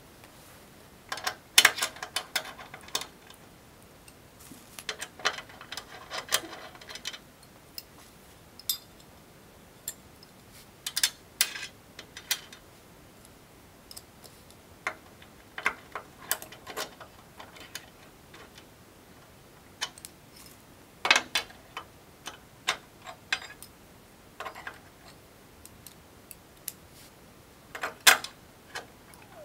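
Irregular clicks and small metallic clinks of a hand tool turning screws and a steel wall bracket being fitted against an aluminium screen-frame profile, coming in short clusters with pauses between.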